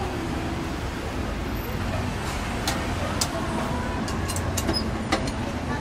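A few light metal clicks and knocks as the lid and mould of a cast-iron hotteok press are handled, over a steady low street rumble.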